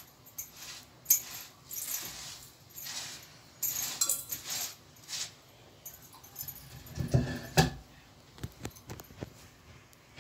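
Jato, a Nepali rotary hand quern: the upper grinding stone turned by its wooden handle over the fixed lower stone, grinding grain with a rasping scrape that surges in uneven strokes about once a second. In the second half come a few heavier knocks and then short clicks.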